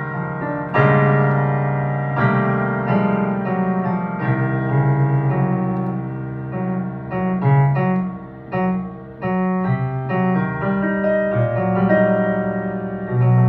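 Pianoteq virtual piano played from a digital keyboard: a solo piano passage of changing chords and melody over held low bass notes that ring on beneath them.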